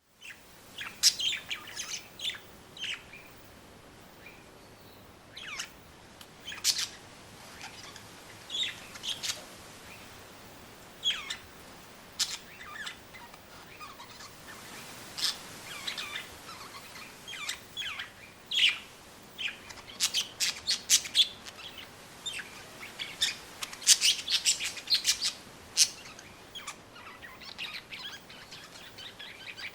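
Birds chirping and calling in short, scattered bursts, busiest about twenty seconds in, over a faint steady hiss.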